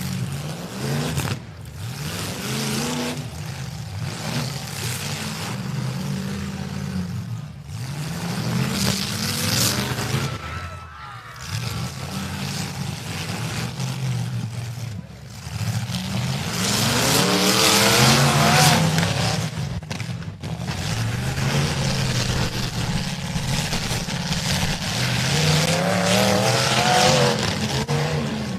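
Demolition derby cars' engines revving hard, again and again, rising and falling in pitch as the drivers work their drivetrains. The loudest burst of revving, with a rush of noise, comes about two-thirds of the way through.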